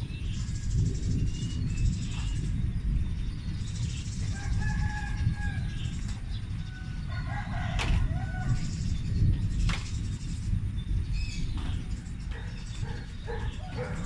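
An unexplained continuous low rumble, like distant thunder that does not stop. Birds call over it, with a longer crow-like call about five seconds in and scattered chirps later.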